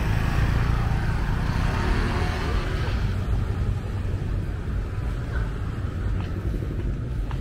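Street traffic noise: motor scooter engines running past close by over a steady low rumble, which drops a little about halfway through.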